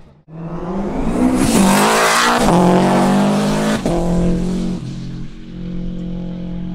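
Racing car driven hard at close range: its engine at high revs under a loud rush of noise that swells about a second in, peaks around two seconds and eases by four, then settles into a steadier engine note.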